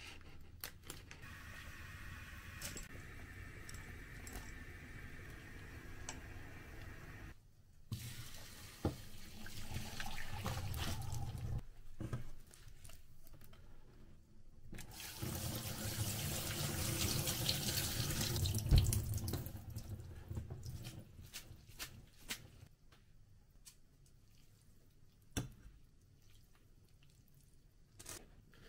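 Tap water running into a stainless steel kitchen sink as cooked soba noodles are rinsed in a mesh strainer, loudest for several seconds around the middle. Scattered clicks and knocks of kitchen handling follow.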